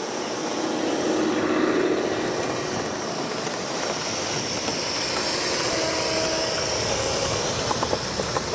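Large-scale garden-railway model train running past close by, its wheels rolling and clattering on the metal rails, growing louder over the first couple of seconds and then holding steady.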